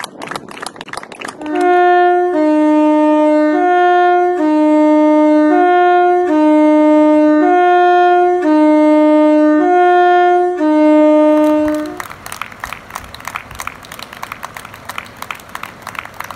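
Two-tone train horns sounding high and low notes alternately, about once a second, for roughly ten seconds. Hand clapping comes before them and returns after.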